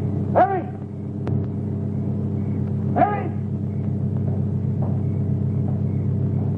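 Low, steady rumbling drone with a faint pulse from a horror film soundtrack. It is broken twice by a short wailing cry that rises and falls in pitch, about half a second in and again about three seconds in.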